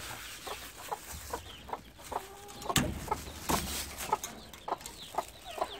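Domestic hens clucking in short repeated calls, with a sharp knock near the middle and a brief rustle of a plastic bag just after.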